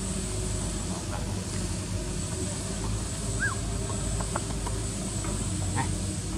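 Steady outdoor background rumble and hiss, with one short high chirp that rises and falls about three and a half seconds in.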